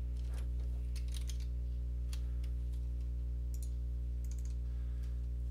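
Scattered computer keyboard keystrokes and mouse clicks over a steady low electrical hum.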